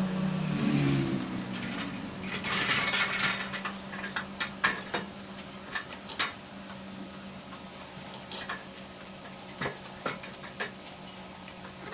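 Scattered light clinks and knocks of tools or objects being handled, over a faint steady machine hum.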